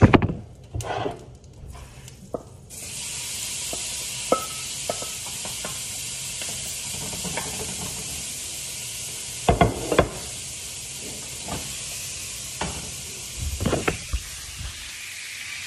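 Shrimp frying in butter in a hot pan: a steady sizzle that starts suddenly a few seconds in, as the food goes into the pan. Knocks and clatters of handling come before it, with a few more sharp knocks over the sizzle.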